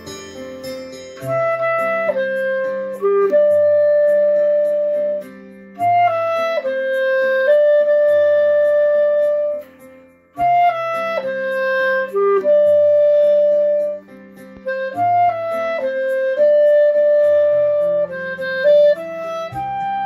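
Clarinet playing a melody in phrases of a few seconds, with brief breaks between them.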